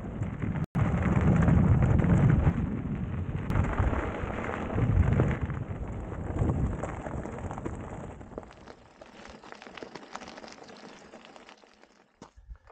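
Wind buffeting an action camera's microphone on a moving electric mountain bike, over the crunch and rattle of tyres on a gravel desert track. The noise is loud and rumbling, with a brief dropout under a second in, and dies away over the last few seconds.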